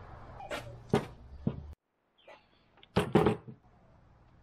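A few sharp knocks and clatters of tools and wood being handled on a plywood sheet on a workbench, in two short groups with a sudden silence between them.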